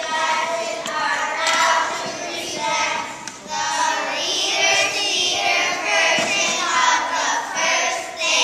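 A group of young children singing together.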